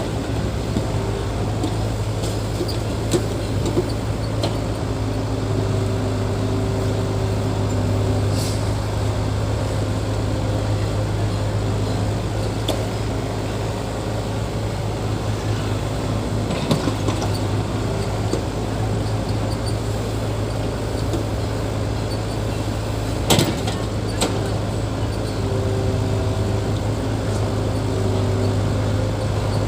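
Heavy earthmoving machine's diesel engine running steadily at a constant note, with a few sharp metallic knocks, the loudest late on.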